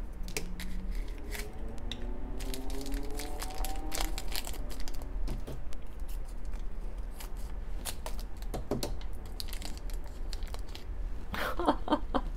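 A small foil blind-bag wrapper crinkling and being torn open by hand, with scattered sharp crackles and clicks.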